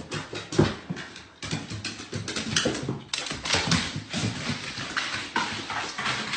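A dog making sounds, over a busy string of short knocks and scuffles.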